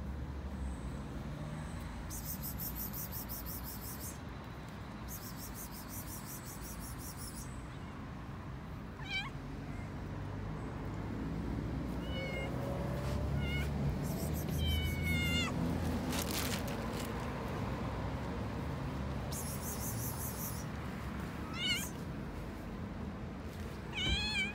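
Stray cats meowing: short, separate meows, starting about nine seconds in and coming every few seconds, the last near the end, over a steady low background rumble.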